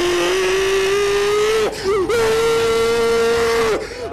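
A voice holding two long, loud notes, the second a step higher than the first, with a short break between them.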